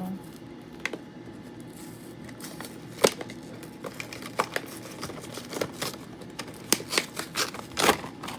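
Toy packaging being worked open by hand: irregular sharp clicks and snaps of cardboard and plastic, one loud snap about three seconds in and quicker, louder clicking near the end.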